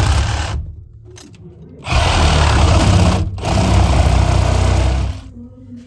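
Reciprocating saw running in three long cutting bursts, the second and third nearly back to back, cutting through old ductwork and wiring during demolition.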